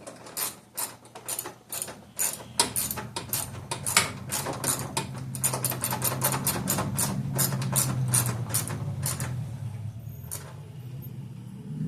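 Ratchet wrench with a 7mm socket clicking in quick, uneven runs as a bolt is tightened. The clicking stops about two seconds before the end, leaving a low steady hum.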